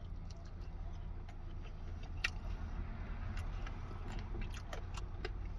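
Close-up chewing and crunching of a battered chicken wing in barbecue sauce, with a few sharp crunches about two seconds in and several more later. A steady low hum runs underneath.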